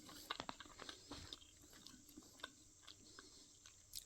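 Faint chewing of a mouthful of teriyaki chicken: soft, scattered mouth clicks, busiest in the first second and a half.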